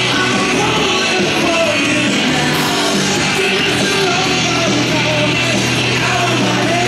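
Rock music with singing, playing at a steady, loud level.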